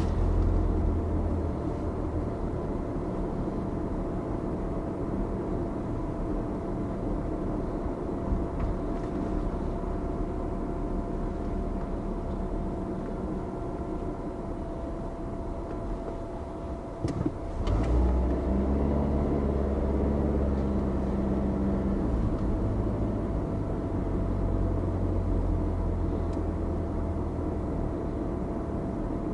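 Car engine and road noise from a car driving slowly. The engine eases off as it slows for a stop sign, a short click sounds past the middle, and the engine then runs louder as the car pulls away.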